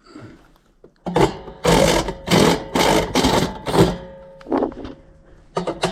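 Power drill with a unibit step bit cutting a hole one step larger in a sub panel, run in about six short bursts with a motor whine under them, followed by a few light clicks near the end.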